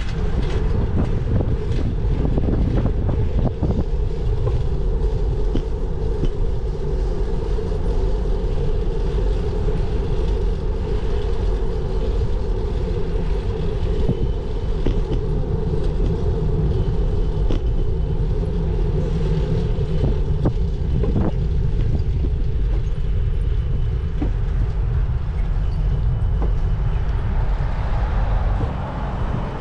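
Steady rumble and rattle from riding a bicycle on the road, with scattered small knocks throughout; it eases a little near the end.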